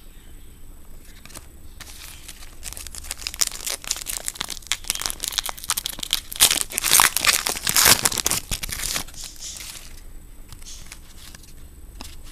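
Foil trading-card pack wrapper being crinkled and torn open, a dense crackling rustle that builds from about two seconds in, is loudest just past the middle and dies down near the end.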